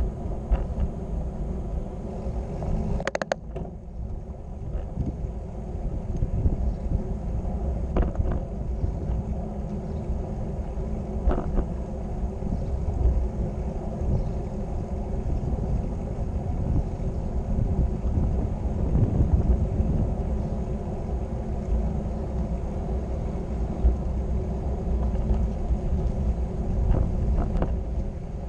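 Steady low rumble of wind and road noise on a moving camera's microphone, with a few brief knocks, the sharpest about three seconds in.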